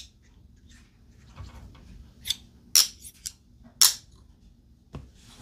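Sharp metal clicks, about five in the second half, the loudest near the end: a steel screwdriver knocking against the eyebolt of a neodymium fishing magnet while the eyebolt is tightened.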